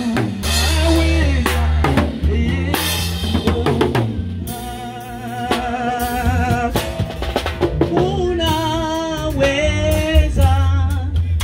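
A church worship band playing live: a drum kit struck with sticks, with voices singing a melody over it and a steady deep bass underneath. The drum strokes are densest early on, and the singing stands out more from about four seconds in.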